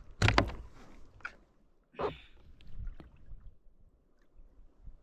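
Water splashing beside a kayak as a released snapper is let go: a loud splash just after the start and a smaller one about two seconds in, with a light knock about three seconds in.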